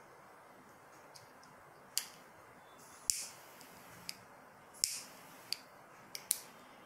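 A pipe lighter being worked, about seven sharp, irregular clicks over some four seconds, three of them followed by a brief hiss.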